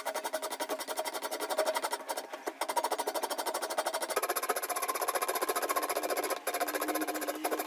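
Coarse steel rasp scraping across a square wooden hatchet-handle blank held in a vise, a fast steady rattling of the teeth on the wood that rounds off its corners.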